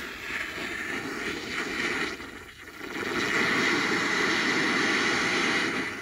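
Nitrogen leaking from a coil pressurised to 56 psi, heard through an AccuTrak VPE ultrasonic leak detector that turns the leak's ultrasound into an audible rushing hiss, played at half volume through a plugged-in speaker. The hiss swells in, dips briefly about two and a half seconds in, then holds loud and steady.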